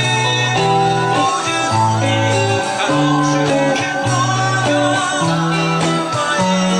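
Guitar music: a guitar playing through the chords of a song, with low bass notes changing about once a second.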